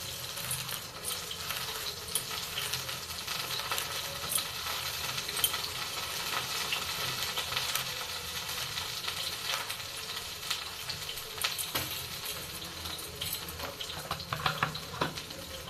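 Dry-fried red chillies being crushed and rubbed into salt by hand: a steady gritty rustle with small scattered clicks.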